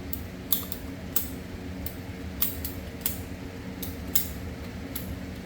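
PVC pipe cutters snipping a rubber hose: a series of about nine sharp clicks and snaps, irregularly spaced, over a steady low hum.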